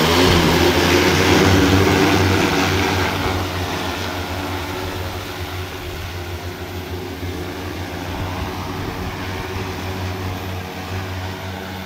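Large multirotor agricultural spraying drone's propellers at full speed as it lifts off and flies away: a loud, steady propeller hum that eases a little after about three seconds.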